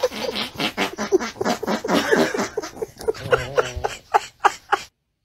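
Dog vocalizing in a rapid string of short pitched calls, several a second, that breaks off shortly before the end.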